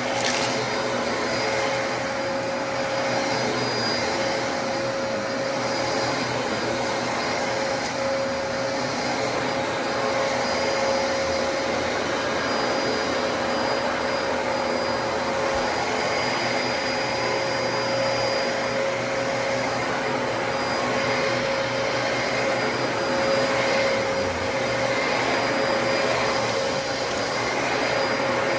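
Dyson DC33 upright vacuum cleaner running steadily: a constant rush of airflow with a steady motor whine.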